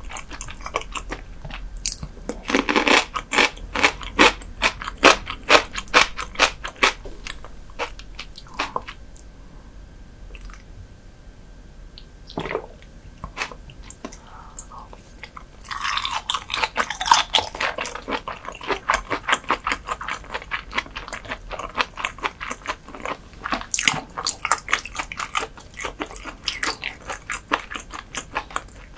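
Close-miked chewing of firm raw herring: rapid runs of chewing clicks that die down to a few scattered ones for several seconds in the middle, then pick up again.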